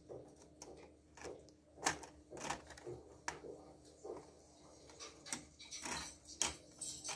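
A laptop's plastic hinge cover strip being pried off with a screwdriver. Its clips snap loose in a run of sharp, irregular plastic clicks, loudest about two seconds in and again near the end.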